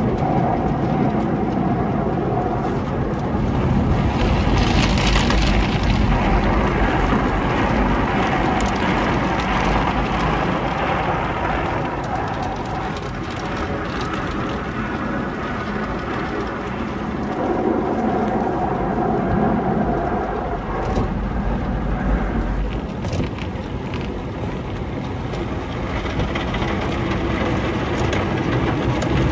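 MacNeil tunnel car wash heard from inside the car: water spraying and cloth wash strips sweeping over the body and windshield, over the steady noise of the tunnel's equipment. A few sharp knocks come about two-thirds of the way through.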